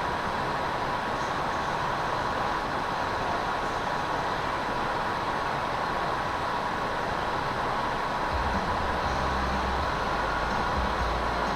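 FPV quadcopter's motors whining steadily under throttle, held against a strong wind, with wind noise on the microphone. The wind rumble starts gusting about eight seconds in.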